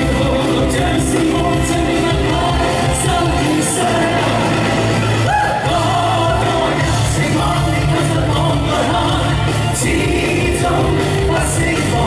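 Two singers performing a Cantopop duet live with a full band, with drums and bass keeping a steady dance beat.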